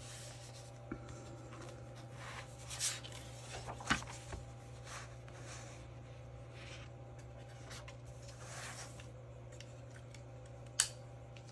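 Scrapbook paper being handled: soft rustling and rubbing as a sheet is smoothed and pressed into place, with a couple of small clicks, the sharpest near the end.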